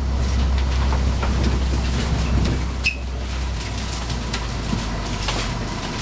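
Cabin noise inside a Van Hool AGG300 double-articulated city bus: a low drone of the engine and drivetrain, which fades away a little over halfway through, over a noisy bed with scattered knocks and rattles.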